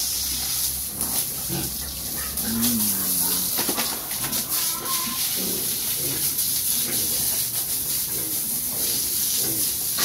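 A garden hose's water jet spraying pigs in a concrete pen, a steady hiss, while the pigs give short low grunts now and then.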